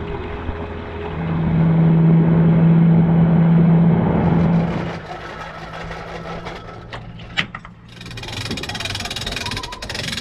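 Outboard motor on a small aluminium boat running, throttled up about a second in and eased back off around four to five seconds. A steady hiss joins it near the end.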